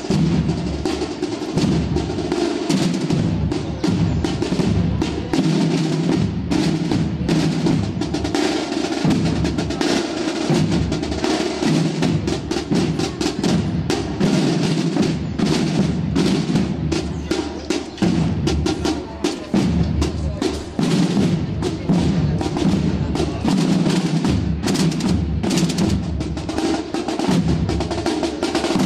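Processional band's drums playing: snare drum rolls and strokes over bass drum beats, continuing without a break.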